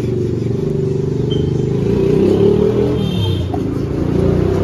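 Honda Civic's four-cylinder engine running, with its pitch wavering slightly, while the car's air conditioning is tested and charged with refrigerant.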